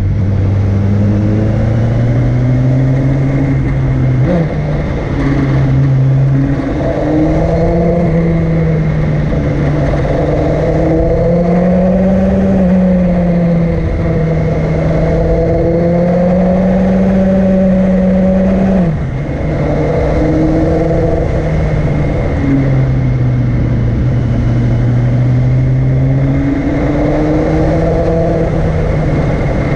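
Vehicle engine pulling steadily up a mountain climb, its pitch rising and falling with the throttle and dropping sharply about two-thirds of the way through, as at a gear change.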